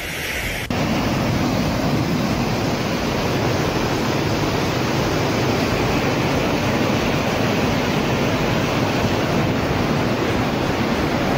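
Muddy floodwater rushing and churning over an earth bank, a steady loud rush of water that starts abruptly just under a second in.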